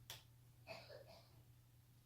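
Near silence with a low hum, broken by a faint sharp click right at the start and a softer short sound about three quarters of a second in.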